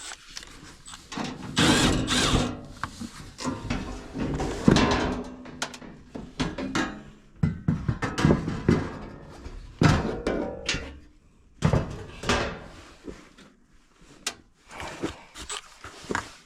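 Hand tools and metal panels of a heating unit being handled: irregular knocks, clacks and scrapes.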